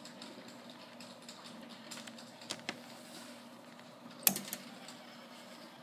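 A few light clicks and taps, the loudest a little after four seconds, over a faint steady low hum.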